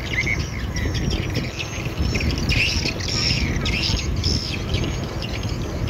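Birds chirping and calling again and again over a steady low rumble.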